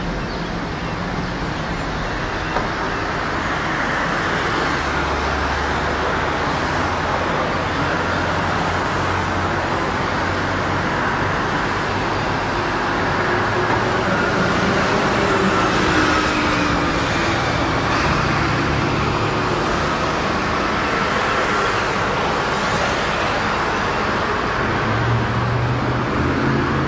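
Diesel locomotive engine running as a train approaches slowly, its low engine note shifting a few times over a steady background noise that grows a little louder.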